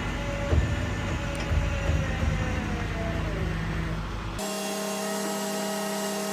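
Vehicle engine running steadily, with a faint tone slowly falling in pitch over the first few seconds. About four seconds in, the sound changes abruptly to a thinner steady hum with the deep rumble gone.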